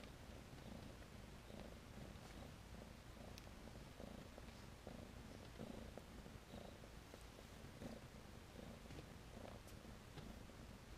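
Faint, steady cat purring in soft, even pulses from a Tennessee Rex queen nursing her newborn kittens.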